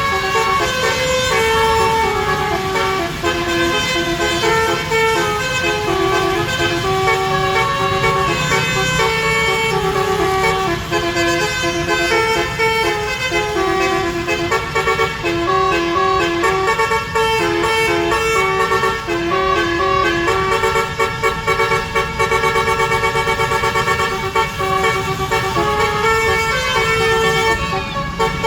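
Basuri musical air horn on an Andaru Utama bus playing a fast tune of quickly changing notes, over a low engine rumble.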